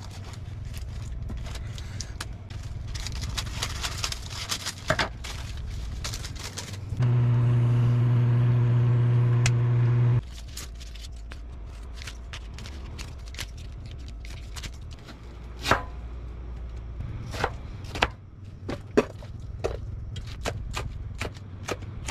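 Kitchen scissors snipping through a split dried fish, then a knife tapping on a plastic cutting board as green chilies are sliced. About seven seconds in, a loud steady hum comes on for about three seconds and cuts off suddenly.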